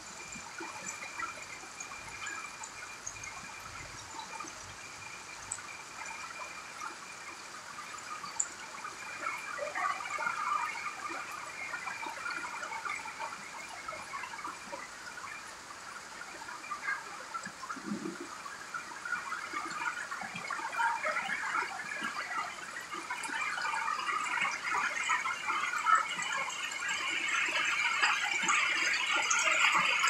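Heavy rain falling on grass and leafy vegetation, a dense steady patter that grows louder over the last ten seconds or so as the rain gets heavier.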